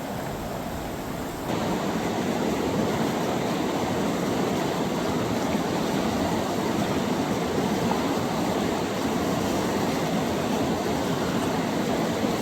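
Steady rushing of river whitewater, stepping up abruptly in loudness about a second and a half in.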